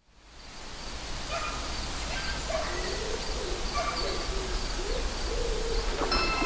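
Outdoor ambience fading in, with birds calling: a few short chirps and a low, wavering hooting call. Music starts near the end.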